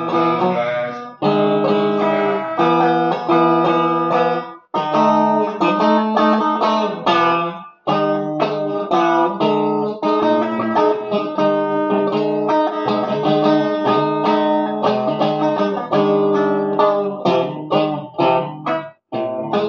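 Electric guitar played solo: strummed and picked chords that ring out and change every second or so. The playing stops short a few times, about four and a half seconds in, about eight seconds in, and again near the end.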